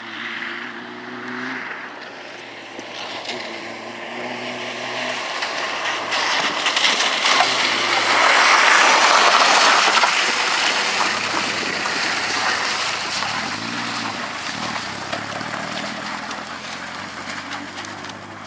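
Peugeot 205 rally car driven hard on a wet gravel track. Its engine revs up and down through the corners as it comes closer, gets loudest as it passes close by about halfway through with tyres hissing and stones ticking on the loose surface, then fades as it pulls away.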